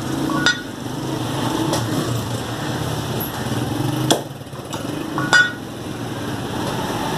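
Butcher's cleaver chopping mutton on a wooden chopping block: a few sharp chops spaced unevenly, the loudest near the end with a short metallic ring. A steady low drone runs underneath.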